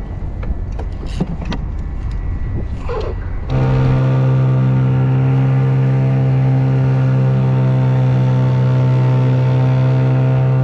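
Wind buffeting the microphone for the first few seconds, then from about three and a half seconds in a Hangkai 12 hp outboard motor running steadily at a constant speed, the boat under way.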